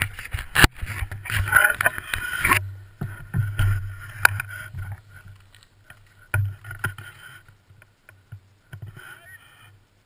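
Snow hissing and scraping under a slide down a slope, with a deep wind rumble on the body-mounted camera's microphone and scattered knocks. It is loudest for the first couple of seconds, then falls off and fades as the slide slows.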